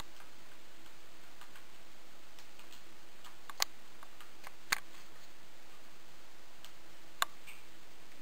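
Scattered light clicks and taps of small tools and carburetor parts being handled, with three sharper clicks, two in the middle and one near the end, over a faint steady hum.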